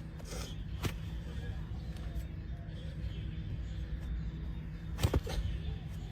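A few sharp knocks, one about a second in and two close together near five seconds in, over a steady low rumble.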